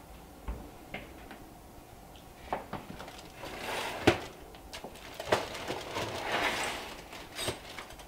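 Oven door and wire oven racks being handled: a few light knocks, a sharp clank about four seconds in, and stretches of rustling, scraping noise in between.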